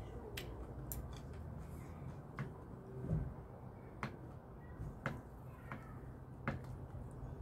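Eating with wooden chopsticks: a few scattered sharp clicks as the chopsticks tap against the plates, over a low steady background.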